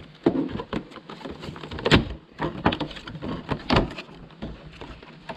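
Clear plastic and cardboard packaging of a pair of motocross goggles being opened by hand: irregular crackles, clicks and scrapes of the stiff plastic box and card flaps. The loudest snaps come about two seconds in and just before four seconds.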